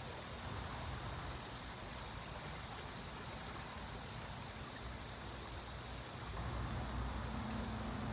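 Steady rushing of water from a nearby small waterfall (weir), with a deeper rumble that swells about six seconds in.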